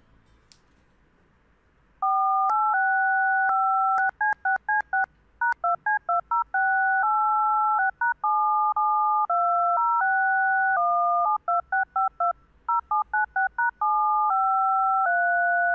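DTMF touch-tone dual tones generated on a computer and played back in sequence, starting about two seconds in: long held tone pairs mixed with quick runs of short ones, their varied lengths meant to make it sound a bit like a tune. The tones encode the ASCII text "hello, how are you?" as hexadecimal digits, with star and hash standing for E and F.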